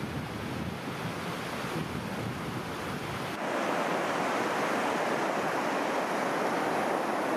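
Ocean surf: waves breaking and washing up a beach as a steady rushing noise, which turns louder and hissier about three and a half seconds in.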